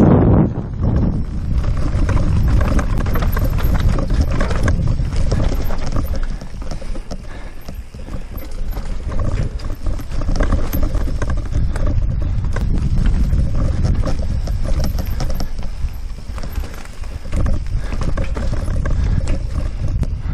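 Mountain bike riding down a rough dirt forest trail: tyres rumbling over the ground and roots, with the bike rattling and knocking over the bumps and wind on the microphone. It eases off for a few seconds about a third of the way in.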